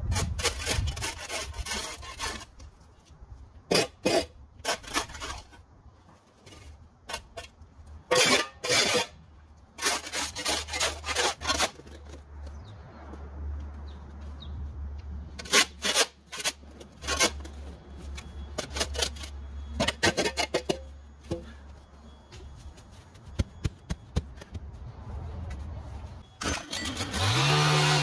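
Irregular scraping and rubbing strokes, some sharp and loud, over a low steady hum. About a second before the end a small engine starts and revs up.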